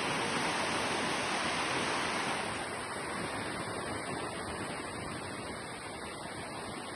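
Sea surf washing onto a beach. The rush is strongest for the first two seconds or so, then eases off.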